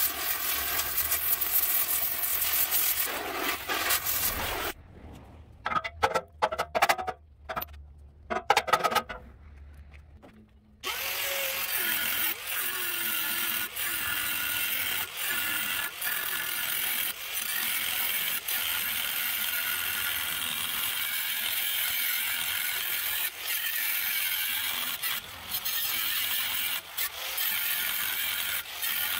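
Power tool running steadily, stopping and starting in short bursts for several seconds near the middle before running continuously again.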